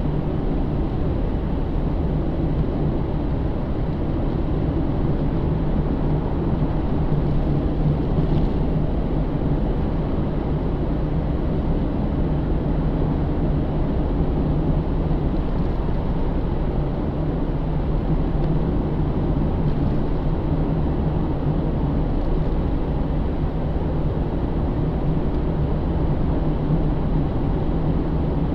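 Inside the cabin of a 2009 Pontiac G8 GT, its 6.0-litre V8 runs at a steady cruise under a low, even drone of engine and tyre noise.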